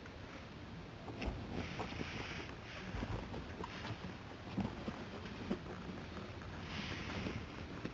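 Pug puppies moving about: scattered light taps and scuffs, with two short hissing bursts, one about two seconds in and one near the end.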